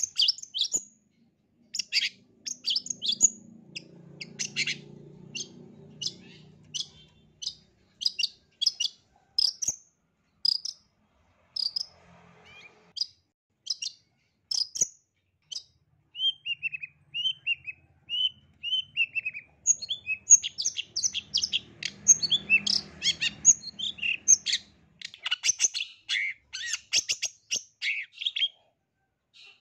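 Long-tailed shrike singing a rapid, varied song of short sharp chips and whistles, with a run of lower down-slurred notes about halfway through and denser, faster chattering near the end.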